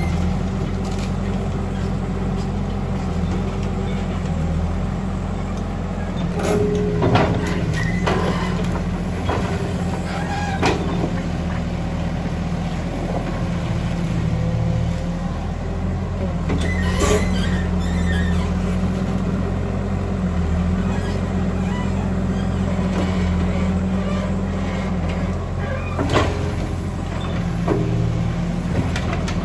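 Old Caterpillar hydraulic excavator's diesel engine running steadily under load while it digs and lifts wet mud, with a few sharp knocks from the bucket and boom several seconds apart.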